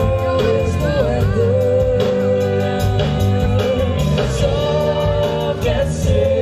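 Live rock band playing: electric guitars and a drum kit keeping a steady beat, with sung vocals over them.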